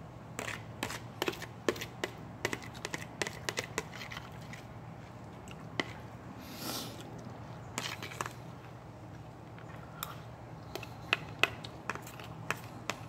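Metal spoon tapping and scraping on a plastic plate while the last rice is scooped up: irregular sharp clicks, thickest at the start and near the end, with a quieter stretch in the middle and a brief hiss partway through, over a steady low hum.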